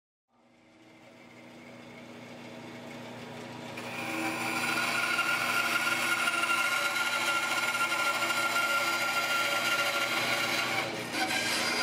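Bandsaw running and cutting through a thick oak board: a steady machine hum and whine that comes up gradually over the first few seconds and grows louder and hissier from about four seconds in.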